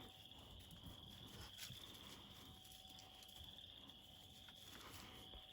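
Near silence outdoors, with a faint steady chirring of insects.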